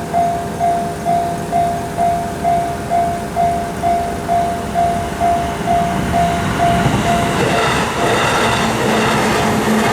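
Japanese level crossing warning bell ringing its rapid "kan-kan" tone, about two strikes a second, while a train approaches. About seven seconds in, the train's running noise takes over and buries the bell.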